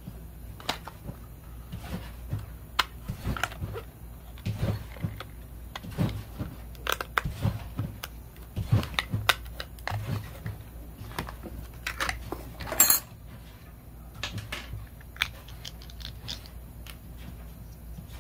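Snips cutting open a plastic blister pack, with irregular crackling of the plastic and small clicks and clinks of parts being handled, and one brief sharp crackle about two-thirds of the way through. A low steady hum runs underneath.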